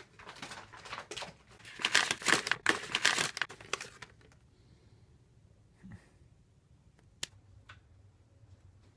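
Paper crinkling and tearing as a wrapped package is pulled open by hand, loudest between about two and four seconds in. A single sharp click comes near the end.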